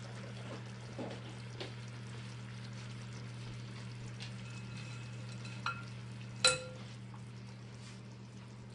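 Broth simmering with a faint sizzle in a braiser on a lit gas burner, over a steady low hum. Just before six seconds in, a light clink; about half a second later, a sharp ringing clink as the mesh strainer meets the glass bowl.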